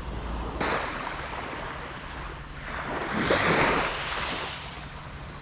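Small waves washing onto the beach in a steady rush. About three seconds in a louder swish swells and fades, as a surf-casting rod is swung through a cast.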